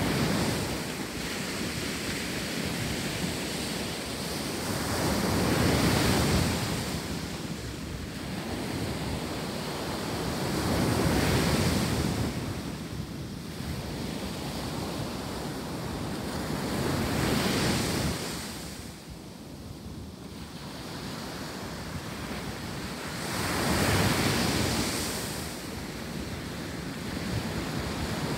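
Ocean surf breaking on a sandy beach, swelling and falling back about every six seconds, with wind buffeting the microphone.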